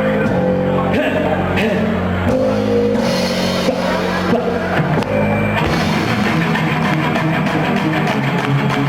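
Rock band playing live: an instrumental passage led by electric guitar over bass and drums, the notes changing every second or so.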